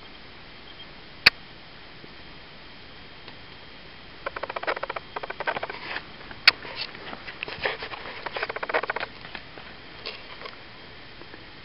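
Quick irregular footsteps and rattling handling noise from a handheld camera carried at a run, from about four seconds in to about nine seconds, with a few more steps near the end. A single sharp knock about a second in.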